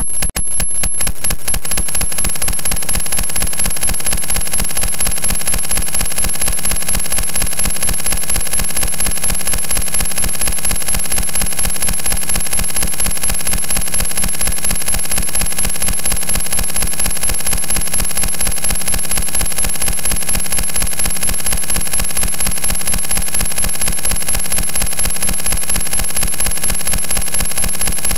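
Harsh experimental noise soundtrack: a fast, even pulse of metallic clicks and rattling with a steady high whine over it, cutting in abruptly after a woodwind-like passage.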